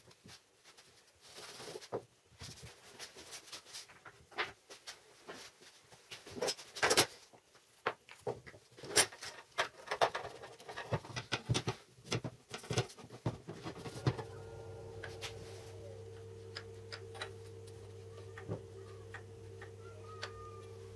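Glued wooden parts and metal F-style bar clamps being handled on a workbench: scattered clicks and knocks as the pieces are set in place and the clamps' jaws are slid up and their screw handles tightened. About two-thirds of the way through, a steady low hum begins and keeps going under the knocks.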